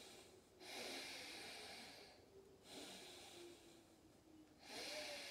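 A person breathing audibly through the nose in slow, deep yoga breaths: three faint breaths of about a second and a half each.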